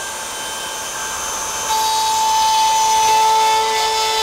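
Trim router running and cutting a groove along a wooden drawer panel for the bottom board. About one and a half seconds in it gets louder, with a steady high whine.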